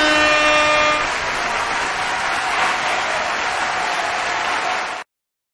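A vehicle horn holds one note for about a second over a dense, steady noise like a crowd or traffic, which then continues alone and cuts off suddenly near the end.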